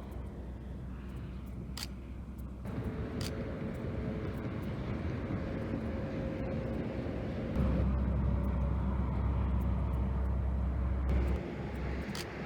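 Car driving, with steady low road and engine rumble and a faint steady whine. The rumble grows louder about two and a half seconds in, swells strongly near eight seconds, then drops back about a second before the end.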